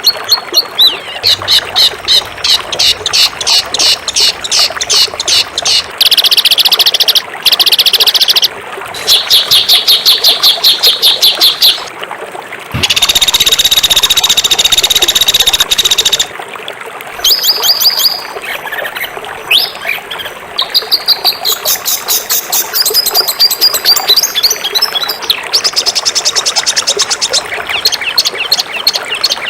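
Songbirds singing in rapid strings of sharp, high repeated chirps, broken by several long, dense, buzzy trills lasting one to three seconds. These harsh trilled bursts are the 'tembakan' phrases used as masteran song for teaching caged birds.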